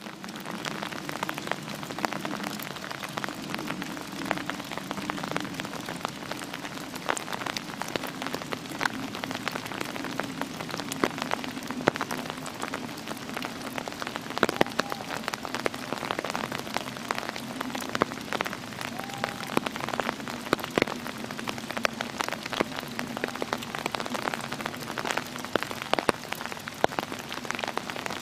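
Rain falling in woodland, a dense patter of countless small drop ticks on the dead leaves and branches, over a low steady hum.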